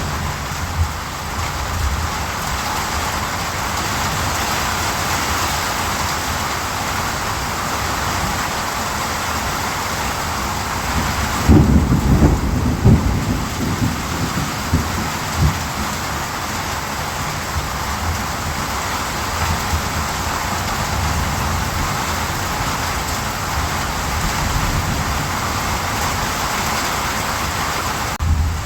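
Steady rain falling, with a rumble of thunder rising about twelve seconds in and cracking several times over a few seconds before fading back under the rain.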